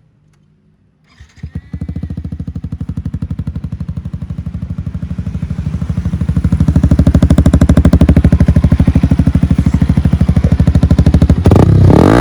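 Yamaha MT-15's single-cylinder engine starting about a second in and settling into a steady pulsing idle through an aftermarket 14-inch Akrapovic-style muffler with its dB-killer baffle removed, so the exhaust is loud and open. The exhaust grows louder about six seconds in.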